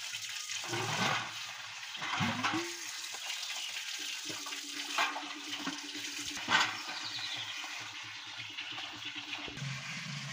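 Water running steadily from a spring's metal spout and splashing into a copper pot as the pot is rinsed, tipped out and set back under the flow, with a few louder splashes, the sharpest a little past the middle.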